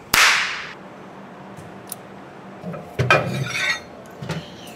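Metal parts being handled: a clatter of clinking, ringing metal about three seconds in and a smaller knock about a second later as metal plates are picked up. A short rushing burst of noise comes right at the start.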